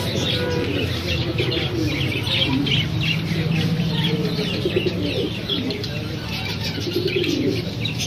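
Many caged birds chirping at once, with low, dove-like cooing mixed in and a steady low hum underneath.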